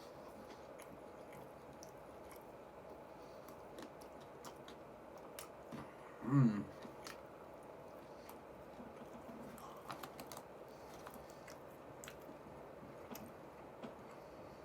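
Close-up chewing and mouth sounds of someone eating fried chicken, with many small wet clicks and light crunches. About six seconds in comes one short voiced hum, falling in pitch.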